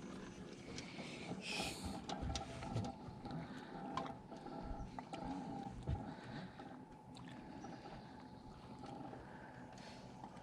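Faint boat sounds on the water: a steady low hum with rumble underneath, scattered knocks and bumps, and a short hiss about a second and a half in.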